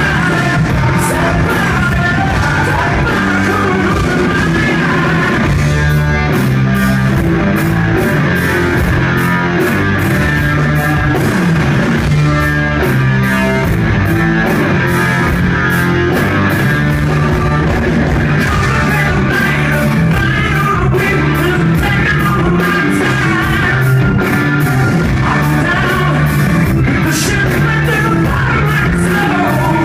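Rock band playing live: electric guitars, bass and drums with a male lead singer, loud and steady, recorded from within the crowd.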